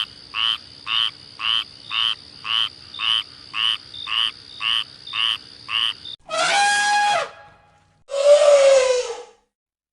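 Animal calls: a run of about a dozen short croaking calls, about two a second, over a steady high whine. Two longer drawn-out calls follow, the second sliding slightly downward.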